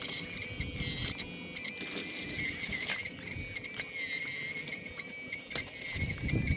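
Electric hydraulic pump of an RC excavator whining steadily and high, with small clicks and knocks from the working machine.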